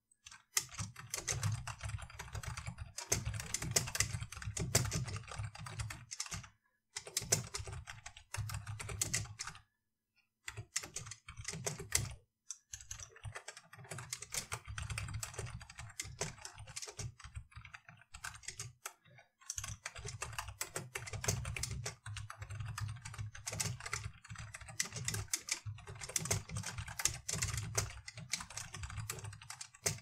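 Typing on a computer keyboard, dense runs of keystrokes broken by a few brief pauses.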